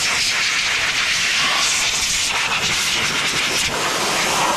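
Woodworking side-hole boring machine running on a test start after its motor and coupling were cleared of damp, packed sawdust, with a loud, steady rushing hiss.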